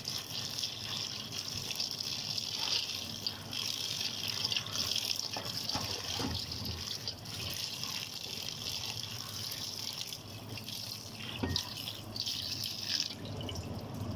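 Kitchen tap running onto soaked split chickpeas (chana dal) in a stainless-steel colander in a sink, a hand swishing the lentils through the water with small clatters against the steel. The running water fades near the end.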